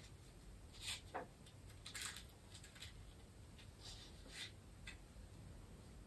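Faint scratching and rustling of small objects handled at a table: a string of short scratches over several seconds, with a brief falling squeak about a second in.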